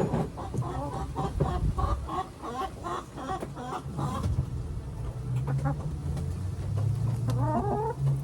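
Backyard hens clucking, a run of short, quick calls, with another clucking phrase near the end. About five seconds in, a low steady hum comes in and rises slightly in pitch.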